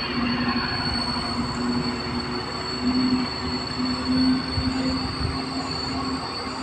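A heavy lorry's engine droning on a hill road, its note wavering and swelling, over a steady high-pitched whine.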